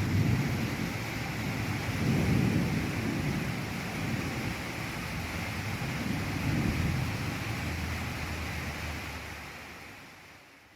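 Thunderstorm sound effect: low thunder rumbling and swelling three times over a steady hiss of rain, fading out near the end.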